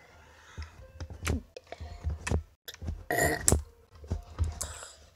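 Slime being handled and squished, giving wet squelching, fart-like noises between light handling knocks, with one louder burst about three seconds in.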